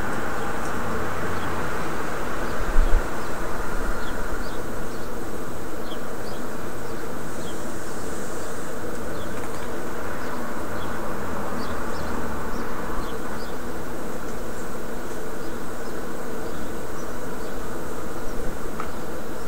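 A steady buzzing drone with faint short high chirps scattered above it.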